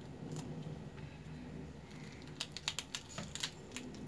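Pomegranate being broken apart by hand, its arils dropping into a plastic colander: a quick run of light clicks and ticks starting about two and a half seconds in, over a low steady hum.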